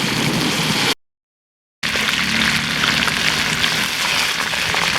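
Chicken frying in hot oil: a dense sizzle full of small crackles. It cuts out to total silence for almost a second, about a second in, then resumes.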